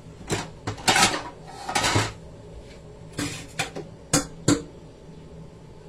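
Kitchen dishes and utensils clattering: a run of sharp knocks, loudest about one and two seconds in, then a few spaced-out knocks that stop about halfway through.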